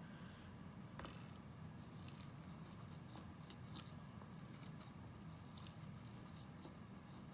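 Faint close-up eating sounds: noodles slurped and chewed, with wet smacking and crackling, and two short, louder slurps about two seconds in and later, near five and a half seconds.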